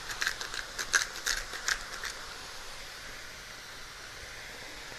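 Salt shaker shaken over a stainless pot of sliced bell peppers and onions frying in olive oil: a quick run of sharp ticks, about four a second, that stops about two seconds in, over the steady faint sizzle of the frying vegetables.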